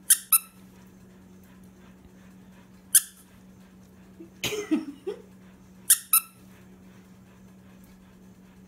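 A green plush squeaky dog toy squeezed by hand, giving five short, sharp squeaks: a quick pair at the start, a single squeak about three seconds in, and another quick pair about six seconds in.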